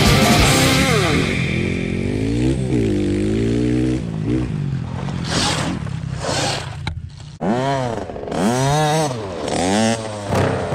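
Gas dirt bike engine revving up and down repeatedly as the bike is ridden hard on loose dirt, with several quick rev rises and drops in the second half.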